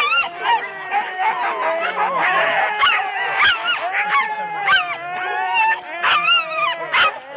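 Siberian sled huskies in harness at a race start, a chorus of many dogs howling, whining and yipping over one another, with sharp barks breaking in several times: the excited din of a team waiting to be let go.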